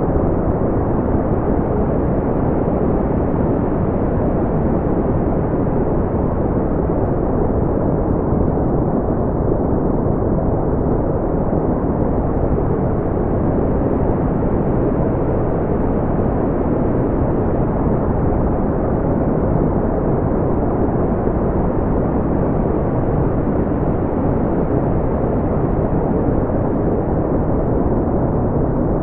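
Steady brown noise: a deep, even rumble of noise with its weight in the low end and little above the middle range, unchanging throughout.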